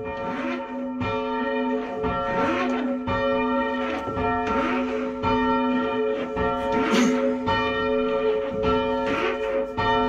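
A single church bell being rung up (raised) by rope from the ringing chamber. It strikes roughly once a second as it swings higher, each strike ringing on into the next, growing slowly louder.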